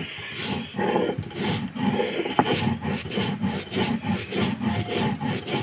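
Sil-batta, a stone roller rubbed over a flat grinding stone, rasping back and forth as it crushes roasted coriander seed and dried red chillies into a coarse masala. The strokes come in an even rhythm of about two to three a second.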